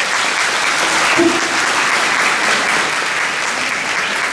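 Audience applauding, a steady dense clapping from a large crowd.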